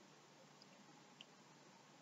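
Near silence: faint room tone and microphone hiss.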